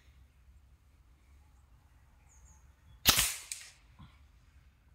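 An FX Impact FAC-rated PCP air rifle fires one shot of a slug about three seconds in: a sharp crack that dies away over about half a second, with a second, fainter crack about half a second after it.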